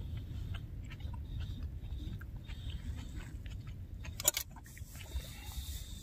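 Someone eating: chewing close to the microphone, with scattered small clicks and one sharper click a little over four seconds in, over a steady low rumble.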